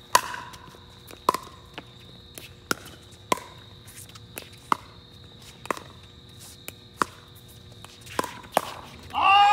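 A pickleball rally: paddles striking the hollow plastic ball in sharp pocks roughly once a second, about ten in all. Near the end a player lets out a loud, drawn-out shout.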